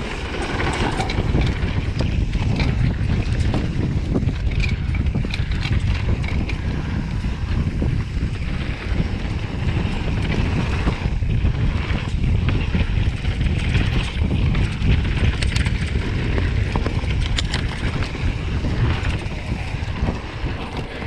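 Wind buffeting the microphone over the rolling noise of mountain bike tyres on a dirt trail, with scattered clicks and rattles from the bike.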